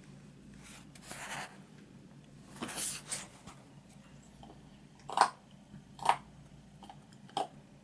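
Book pages being turned by hand: two soft rustling swishes of paper, then three short, sharp snaps.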